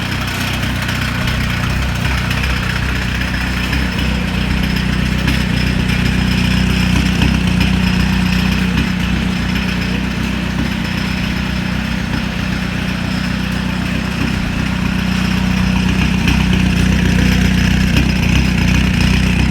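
Peugeot 306 diesel turbo engine idling steadily, which the owner presents as sounding in a poor state.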